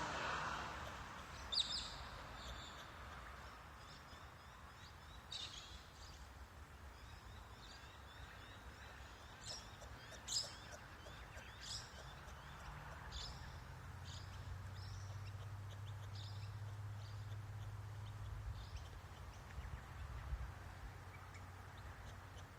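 Birds chirping: scattered short, high calls over steady outdoor background noise, with a low hum for several seconds in the middle.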